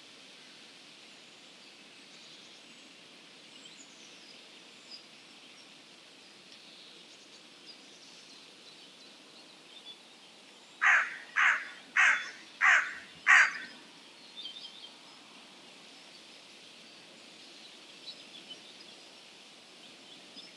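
A crow cawing five times in quick succession, about two calls a second, around the middle. Faint high chirps of small songbirds are heard before and after the caws, over a steady background hiss.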